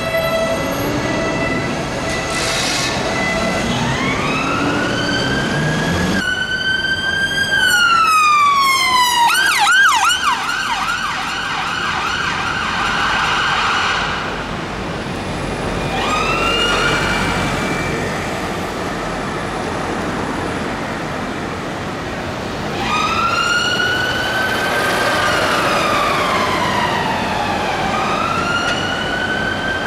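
Electronic emergency sirens: a police car's siren, then, after an abrupt change about six seconds in, an ambulance fast response car's siren. The siren sweeps slowly up and down in a wail, switches briefly to a fast yelp about ten seconds in, holds a steady tone, then returns to the wail, over road traffic noise.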